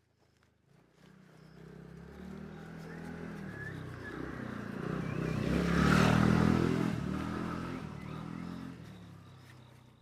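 Royal Enfield Meteor 350's single-cylinder engine running, growing steadily louder to a peak about six seconds in and then fading away, as the motorcycle goes past.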